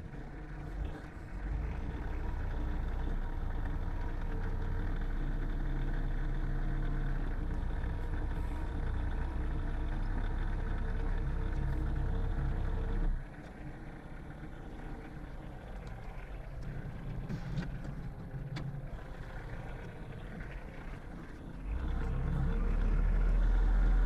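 Compact tractor's engine running under throttle while its front loader carries a log; the engine note drops suddenly about halfway through, then rises and grows louder again near the end as the tractor backs away.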